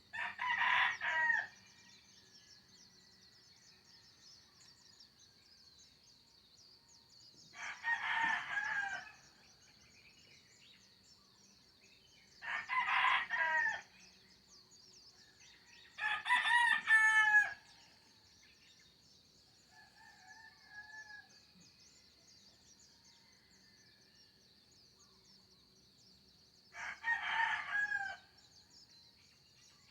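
Roosters crowing five times, several seconds apart, each crow about a second and a half long, over a steady high-pitched whine. A fainter short call comes about two-thirds of the way through.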